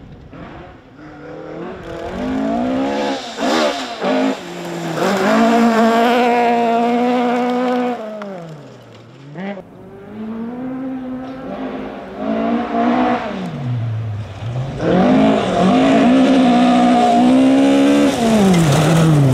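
Fiat 131 Abarth rally car's four-cylinder engine revving hard on a gravel stage. The pitch climbs through the gears and falls sharply twice as the throttle comes off for corners. It is loudest near the end as the car charges towards the listener.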